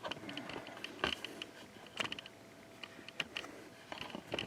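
Scattered light clicks and taps from objects being handled and set down, the sharpest about a second in, at two seconds and near the end.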